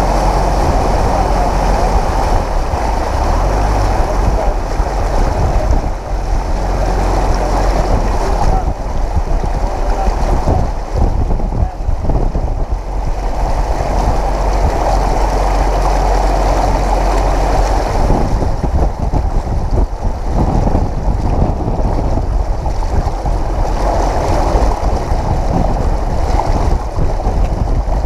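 Flood water surging and splashing along the side of a 4x4 as it pushes through deep standing water on a road, with a steady low rumble underneath.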